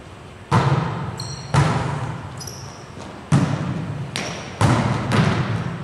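Volleyball rally: five sharp smacks of hands and arms striking the ball, each ringing on in the echo of a large gym hall, with sneakers squeaking briefly on the floor twice.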